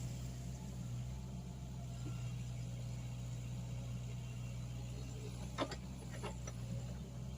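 Mini excavator's diesel engine running steadily, with two or three sharp metallic clanks about five and a half to six and a half seconds in.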